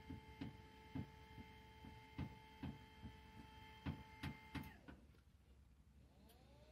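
Ritter 223 power exam table's electric drive motor running with a faint steady whine and light irregular clicks as the backrest lowers. About four and a half seconds in it winds down in pitch and stops, and near the end a motor starts again with a whine that rises in pitch.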